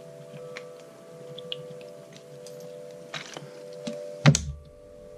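A plastic water bottle handled while watering a clay pot: light taps and clicks, a short rustle about three seconds in, then a single loud thump just after four seconds as the bottle is set down. A steady hum runs underneath.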